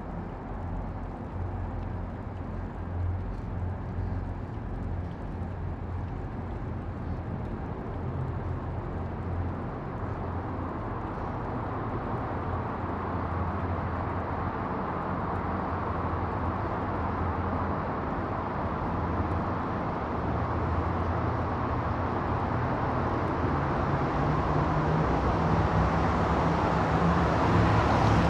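Steady low engine rumble with a noise haze over it, slowly growing louder toward the end.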